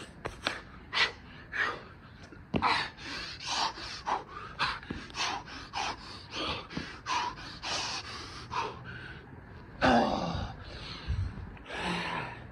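A man's heavy, rapid breathing under the exertion of burpees: short, hard breaths about two a second. About ten seconds in comes one longer, louder exhale that drops in pitch.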